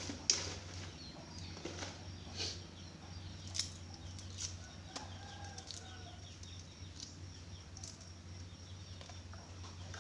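Scattered light clicks and taps of kitchen prep work, utensils and ingredients being handled, over a steady low hum, with a faint short pitched call about halfway through.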